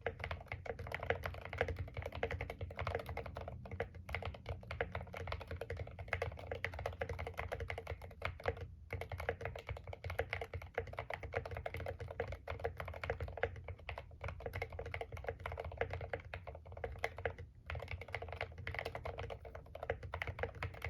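Continuous typing on a mechanical keyboard with stock Akko Rosewood linear switches and Drop MT3 keycaps in a foam-filled Idobao ID67 case with an acrylic bottom: a rapid run of keystroke clicks, broken by brief pauses about nine seconds in and again near the end.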